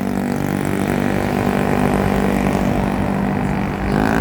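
Street traffic: the engines of passing vehicles run steadily, and near the end another vehicle's engine note rises as it comes closer.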